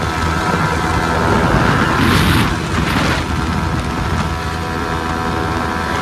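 Yamaha R15 motorcycle engines held at high, steady revs during a top-speed run, a constant drone, with wind rushing over the microphone. A louder rush of noise comes about two seconds in.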